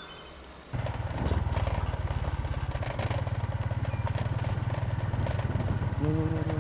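A small step-through motorcycle's engine running steadily as it rides along, coming in suddenly under a second in after faint outdoor quiet. A brief pitched call sounds over it near the end.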